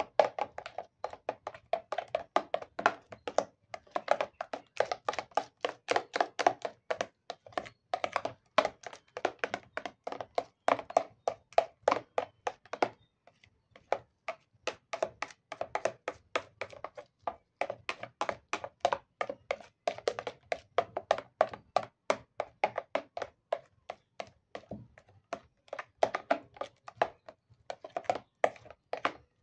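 A spoon stirring a thick cream mixture, knocking against the sides of a plastic bowl at about three taps a second, with two short breaks.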